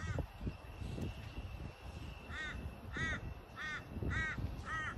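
A crow cawing: one caw at the start, then a run of five quick, harsh caws a little over half a second apart from about two seconds in.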